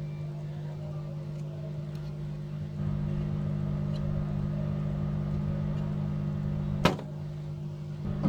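Steady electrical hum from running bench equipment, pitched at multiples of the mains frequency, with one sharp click a little before the end.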